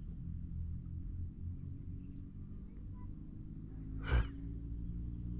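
Quiet outdoor ambience: a steady low rumble under a faint steady high hiss, broken about four seconds in by one short, sharp noise.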